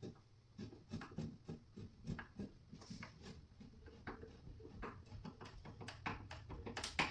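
Irregular light clicks, taps and rubbing from nightstand parts being handled and adjusted during assembly, with a sharper click near the end.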